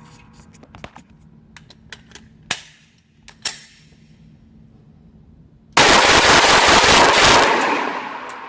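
Light scattered clicks and knocks, then about six seconds in, a rapid string of shots from a 7.5-inch AR-15 pistol that run together into one loud, continuous blast for under two seconds before dying away.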